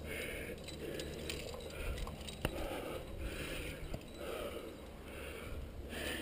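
A rock climber breathing hard and rhythmically close to the microphone while moving up the rock, with a few sharp clicks of gear or hands against the limestone.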